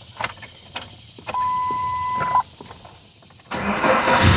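Ignition switched on with small key clicks and a steady dashboard warning beep about a second long. Near the end the 1999 Ford Ranger's 2.5-litre four-cylinder engine suddenly cranks over and catches.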